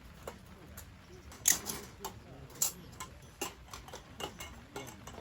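Irregular light clicks and knocks, a dozen or so at uneven spacing, two of them louder about one and a half and two and a half seconds in.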